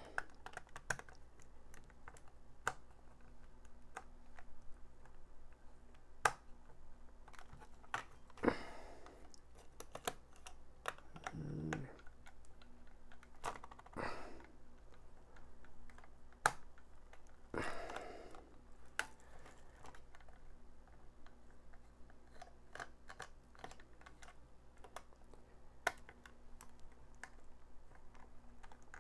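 Scattered clicks and taps of hard plastic as a cheap LED flashlight's plastic housing is handled and taken apart by hand, with a few short louder scrapes and rustles.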